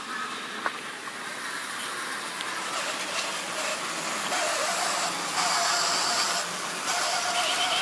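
Model railway train running on its track: the electric motor whines over a rattle of wheels on rail, growing louder about halfway through. A single sharp click comes under a second in.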